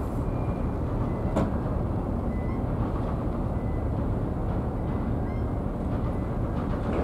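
Steady low rumble of outdoor background noise, with a single sharp click about a second and a half in.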